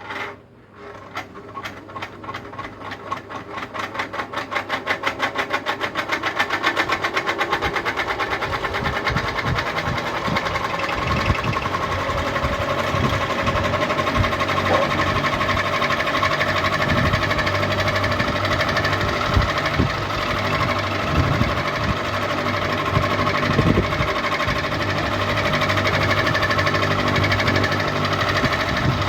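Ceiling fan switched on with a sharp click and spinning up: a rhythmic beat that quickens and grows louder over the first several seconds, then settles into steady running with a steady hum.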